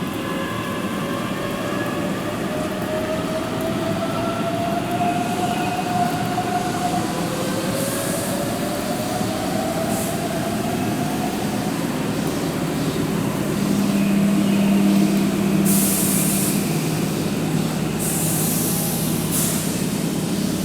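Keihan 7200 series electric train pulling away, its traction motors whining in steps that rise in pitch over the first several seconds, over steady rolling noise. Several short bursts of hiss come later.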